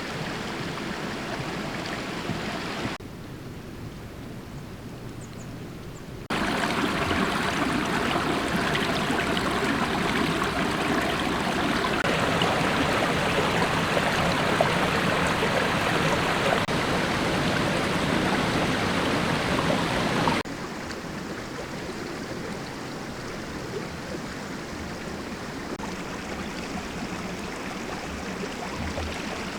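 Running water, a steady rushing flow like a stream, in several edited takes that cut in and out at different loudness. The loudest take runs from about six to twenty seconds in.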